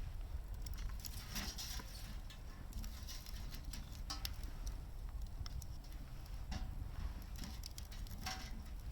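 Firewood burning in a wood gas stove, crackling with irregular sharp pops and snaps over a low steady rumble.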